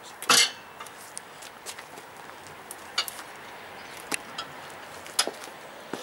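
A steel tyre-changer bar clinking and knocking against a motorcycle wheel rim and the changer stand as it is worked to lever the tyre bead off. One loud clank comes about a third of a second in, followed by scattered lighter clinks.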